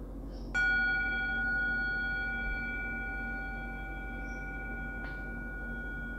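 Small metal singing bowl held in the palm, struck once with a wooden striker about half a second in, then ringing on with one clear high tone and several fainter overtones, slowly fading.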